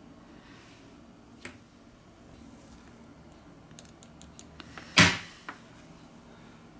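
Light clicks and taps of metal tweezers and a plastic spudger working on a smartphone's metal mid-frame, with one much louder sharp knock about five seconds in and a smaller one just after.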